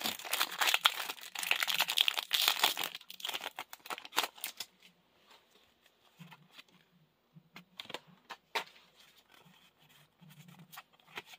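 A foil Pokémon booster pack being torn open and crinkled for the first four seconds or so. After that come quieter scattered clicks and rustles as the cards are slid out of the wrapper and handled.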